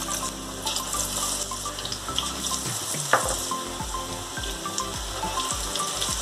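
Batter-coated cauliflower deep-frying in hot oil in a steel wok: a steady sizzling hiss. A sharp metallic click about three seconds in as a fork knocks against the wok.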